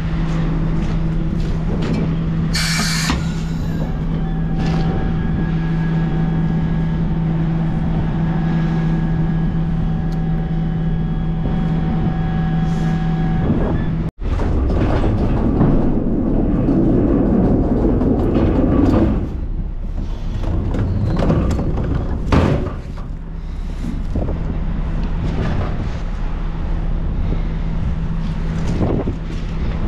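Heavy truck running with a steady low hum. After a sudden break about halfway through, it gives way to a noisier rumble with scattered knocks and clatter.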